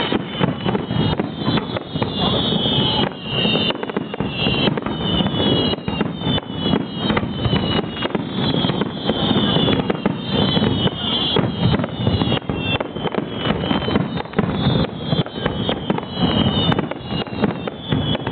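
Aerial fireworks finale: a continuous rapid barrage of shell bursts and bangs, overlaid by many high whistling tones that fall in pitch.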